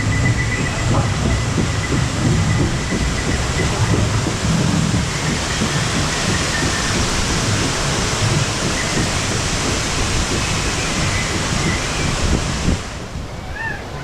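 Loud, steady rumble and clatter of the raft riding the lift-hill conveyor of a whitewater raft ride, cutting off suddenly near the end. Short chirping calls follow.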